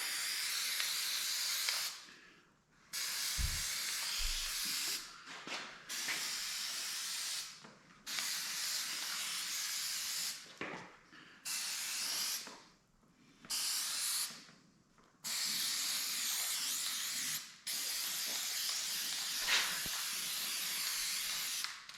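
Spray glue hissing out in repeated bursts of one to four seconds with short pauses between, as adhesive is sprayed on for a vinyl cover.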